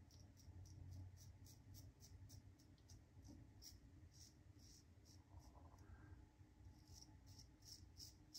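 Faint short scrapes of a Tatara Nodachi double-edge safety razor cutting through lathered stubble, in quick irregular strokes of about two or three a second.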